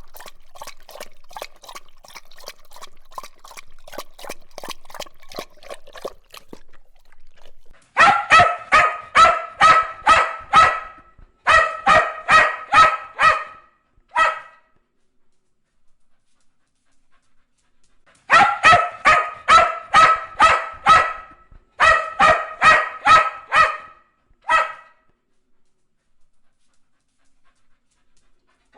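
A dog lapping water with a quick run of wet clicks, which stops about six seconds in. After a short pause, a dog barks rapidly in runs of six to eight barks at about three a second, twice over with a pause of a few seconds between.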